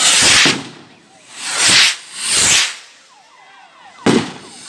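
Fireworks skyrockets being set off: three long hissing rushes in quick succession, then a sharp bang about four seconds in.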